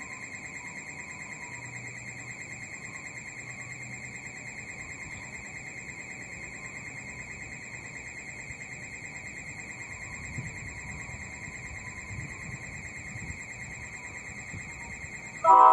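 A steady, high-pitched, rapidly pulsing electronic tone, with a faint low rumble of an approaching train coming in from about ten seconds in. Right at the end, the NJ Transit locomotive's multi-note horn starts to sound, suddenly and loudly.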